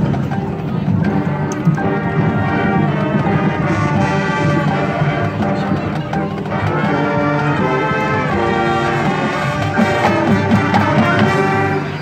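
Marching band playing, its brass holding sustained chords that change every second or two, with percussion beneath.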